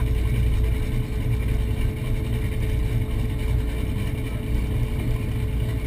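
Powerboat engines idling at the dock: a steady low rumble with a constant hum over it.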